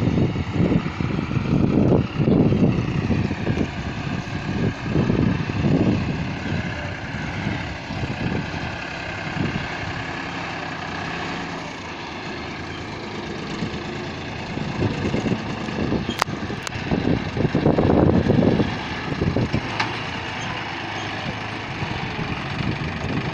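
The engine of a rice harvesting machine running steadily, with louder, irregular low rumbling surges in the first few seconds and again past the middle.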